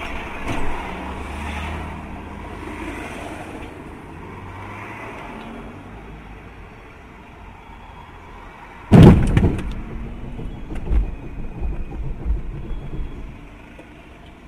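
Steady low hum of a car waiting in traffic, broken about nine seconds in by one loud sudden bang, then several irregular knocks over the next few seconds.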